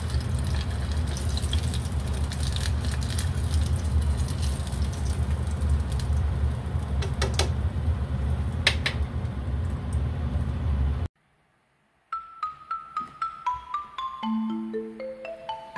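Water running steadily, with a few light clinks, for about eleven seconds; it cuts off abruptly. After a second of silence, a light marimba-like mallet tune begins.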